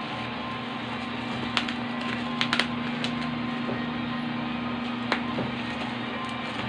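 A few sharp clicks and knocks from handling things, a cluster of them about two and a half seconds in, over a steady low hum.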